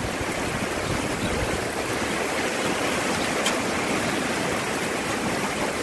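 Heavy downpour: a steady rush of rain.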